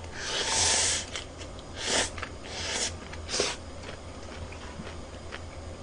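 A person slurping cold mixed noodles off chopsticks: four noisy slurps over about three and a half seconds, the first the longest.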